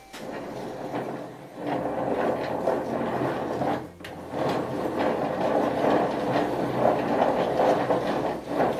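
Bicycle sprocket and pulley reduction drive spun by hand, running with a steady whirring rattle. It briefly dies down about four seconds in and is spun up again. The sprocket has just been hammered straight, and the spin checks that it runs true.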